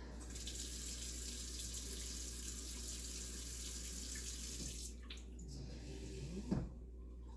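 Kitchen tap running steadily into a measuring cup for a quarter cup of water, shut off about five seconds in; a small knock follows near the end.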